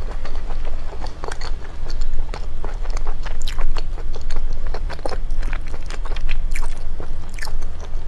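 A person chewing, with many short, sharp clicks and crackles as sea snails in chili sauce are pulled apart and picked from their shells by hand.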